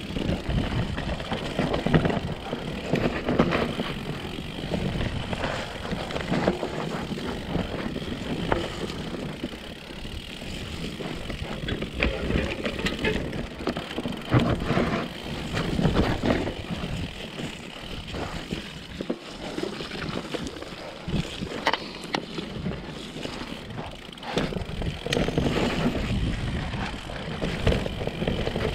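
Mountain bike riding down a dirt forest trail: tyres rolling over dirt and roots with a steady rushing noise, broken by frequent knocks and rattles from the bike over the bumps.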